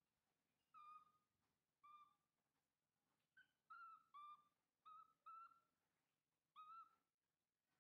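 Baby macaque giving faint, short, high-pitched coo calls, about eight in a row at uneven intervals.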